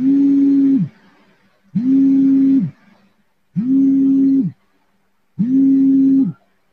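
A low electronic hum-like tone repeating four times, each about a second long and evenly spaced, sliding up in pitch at the start and down at the end of every tone.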